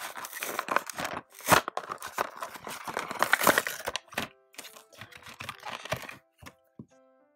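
Toy packaging torn open and crinkled by hand: irregular tearing and rustling with sharp cracks, stopping about a second before the end.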